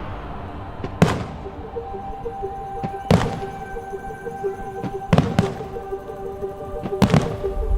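Four sharp firework bangs about two seconds apart, the opening shots of a pyromusical, over music with long held tones.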